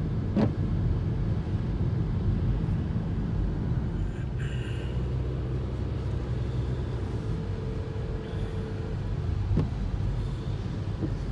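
Car cabin noise while driving: a steady low rumble of the engine and tyres, heard from inside the car.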